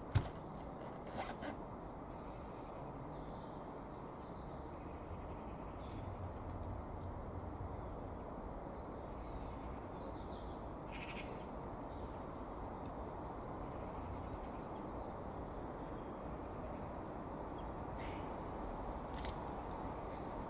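Steady outdoor background noise with a few brief, faint bird chirps. A single sharp click just after the start, with two smaller clicks about a second later.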